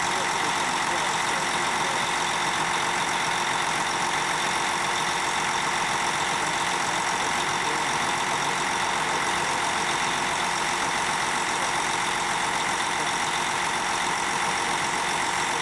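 Heavy diesel engine on a boom pump truck running steadily at idle, with a steady high whine over the engine noise.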